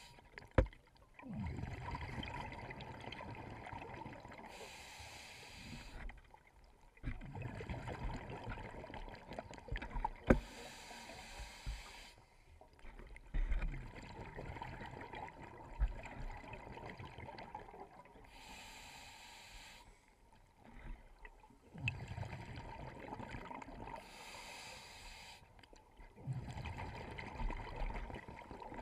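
Scuba regulator breathing picked up underwater through a GoPro housing: a hissing breath about every six to seven seconds, each followed by a few seconds of low rumbling exhaust bubbles. A few sharp knocks stand out above it.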